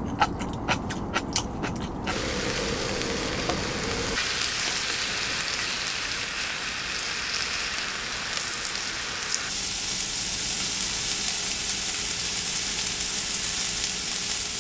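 Sliced beef and vegetables sizzling on the griddle plate of an electric multi-grill, a steady frying hiss. A few sharp clicks come in the first two seconds.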